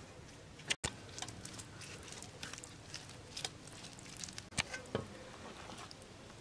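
Hands working spice paste into split fish in an aluminium bowl and setting the pieces on a steel tray: irregular wet squishes and small clicks of fish against metal.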